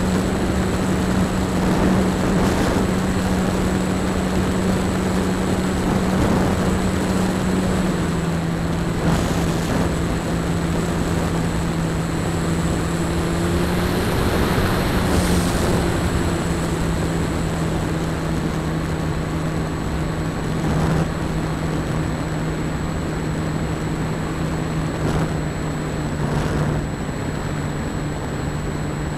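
E-flite Apprentice trainer's electric motor and propeller droning steadily, heard from a camera on board the plane, with wind rushing past. The drone drops a little in pitch about eight seconds in as the motor slows.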